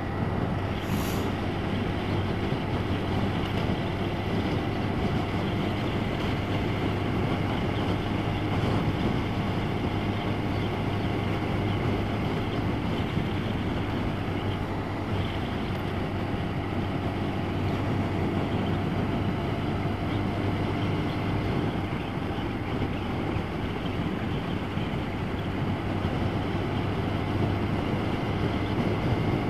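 Yamaha motorcycle cruising at a steady speed, heard from on board: an even engine drone under a rush of wind and road noise.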